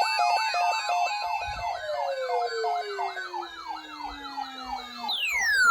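Several sirens sounding at once: fast rising-and-falling wails layered over stepped two-tone signals. About two seconds in, one siren slowly winds down in pitch, and near the end another drops steeply.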